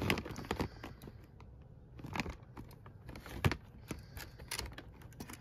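Clear plastic eyelash cases clicking and tapping against each other and the plastic storage bin as they are flipped through by hand: scattered light clicks, with a couple of louder knocks around the middle.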